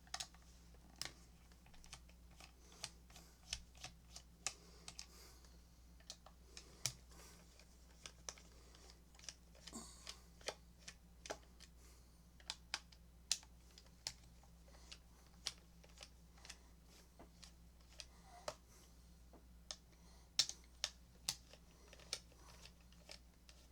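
Irregular sharp clicks and ticks, one to three a second, of a screwdriver taking small screws out of a plastic Bluetooth speaker housing, with the screws and parts set down on the bench.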